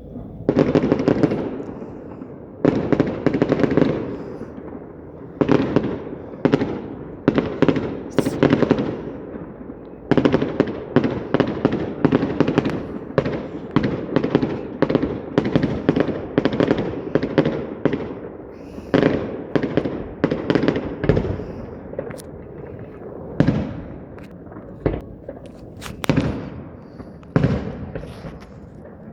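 Aerial fireworks exploding one after another: dozens of loud bangs, each with a short ringing tail, coming thickest in a rapid volley around the middle.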